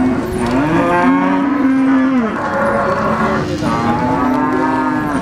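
Cattle mooing: two long, drawn-out moos, each rising at the start, held, then falling away, about a second and a half apart, with the tail of an earlier moo at the very start.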